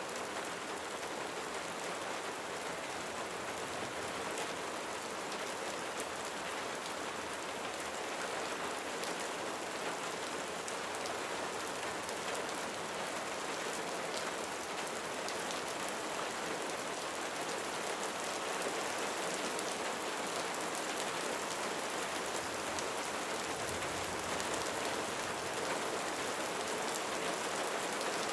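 Steady rain falling on a roof, a continuous hiss with individual drops ticking through it, growing slightly louder in the second half.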